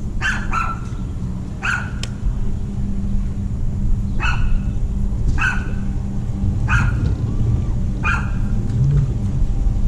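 A dog barking, about seven single barks at uneven gaps, over a steady low hum.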